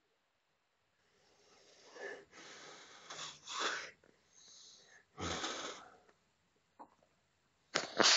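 A sleeping man breathing heavily and noisily. After about two seconds of quiet come a few breathy, hissing breaths in and out, the last about five seconds in.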